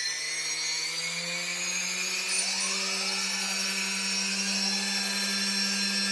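Brushless multirotor motors, props off, whining steadily on the bench as the throttle is slowly raised; the pitch rises a little about a second in. The motors are starting unevenly, not all running at the same throttle, a fault the owner sees with the DJI Naza flight controller driving SimonK-flashed HobbyKing BlueSeries 30A ESCs.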